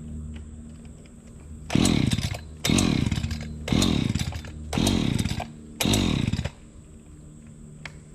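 Two-stroke Echo chainsaw idling, then revved five times in quick succession. Each rev jumps up and falls back in pitch.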